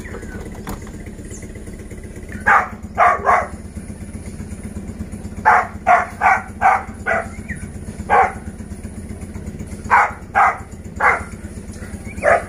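Dog barking in short bouts, about thirteen sharp barks in all, over a steady low engine hum.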